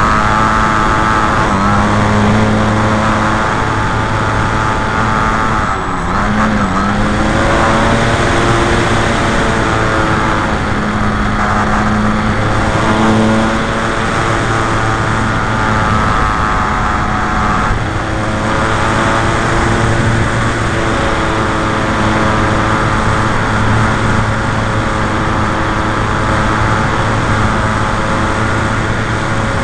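Brushless electric motor and propeller of a radio-controlled Piper J-3 Cub model running steadily in flight, with a pitch that dips and recovers briefly about six seconds in, heard from an onboard camera over heavy wind rush.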